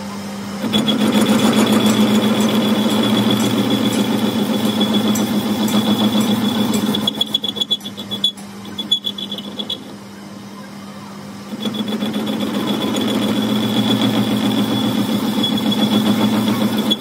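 Metal lathe turning a steel excavator bucket pin while the cutting tool takes a cut, a steady hum with a high whine over it. The sound drops and breaks up for a few seconds around the middle, then comes back as loud as before.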